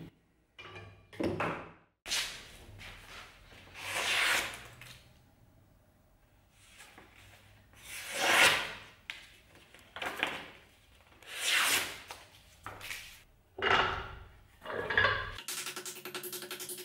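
A Bowie knife blade slicing through a hand-held sheet of paper, a series of about nine quick papery swishes and rustles, a paper-cutting test of the edge's sharpness. Music with a steady drum beat comes in shortly before the end.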